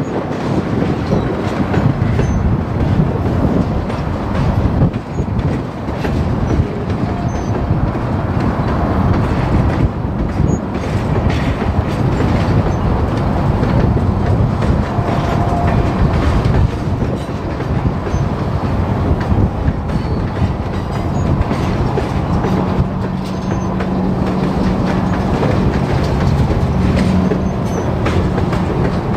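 Union Pacific freight train's tank cars and boxcars rolling past, wheels rumbling and clicking over the rail joints. A low steady hum joins in for the last several seconds.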